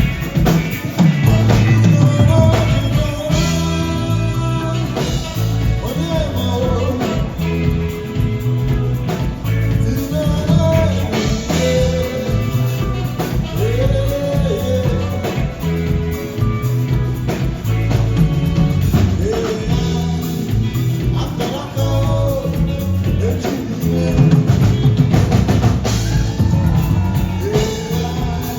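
A live band playing a song: a singing voice over electric guitar, bass and a drum kit, with a steady beat.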